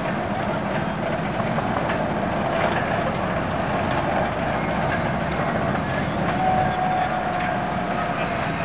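Cedar Point's Raptor, an inverted roller coaster, with its train climbing the chain lift hill: a steady mechanical rumble with faint clicks every second or so.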